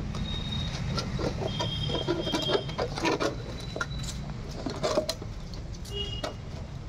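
Labrador puppies scuffling on a tiled floor, with irregular clicks and scrapes of paws and claws and a plastic ball being nosed about. A steady low rumble runs underneath, and a few faint short high chirps come near the start and again about six seconds in.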